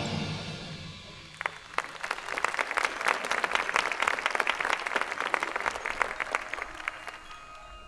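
A marching band's closing chord dies away, and about a second and a half later the audience breaks into applause that swells, then thins out near the end.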